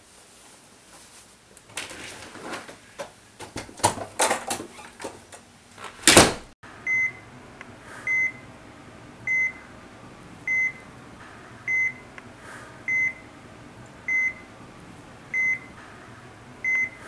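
Hospital patient monitor beeping steadily, one short high tone about every 1.2 seconds, starting about seven seconds in. Before it, scattered knocks and a loud bang about six seconds in.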